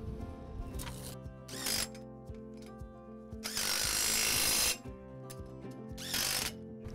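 Cordless DeWalt power tool spinning a socket to tighten down a two-bar mount bracket on a combine corn head's toolbar. It runs in bursts: two short ones, a longer run of about a second in the middle, and another short one near the end, over steady background music.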